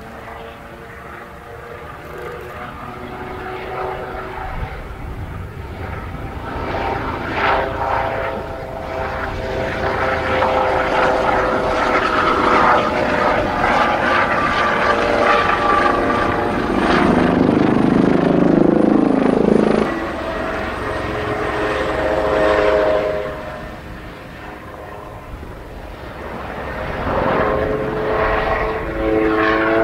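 Kawasaki OH-1 helicopter with twin turboshaft engines flying past: a whine of several stacked tones that shift in pitch over the rotor noise. It grows louder to a peak about two-thirds of the way through, drops away, then swells again near the end.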